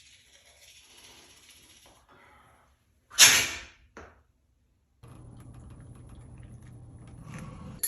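A single loud sneeze about three seconds in, a short sharp burst that quickly dies away, followed by a brief click. A faint steady low hum comes in a few seconds later.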